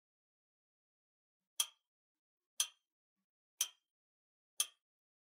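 Clock-tick sound effect counting off the time to answer a quiz puzzle: one sharp tick each second, starting about a second and a half in, four ticks in all.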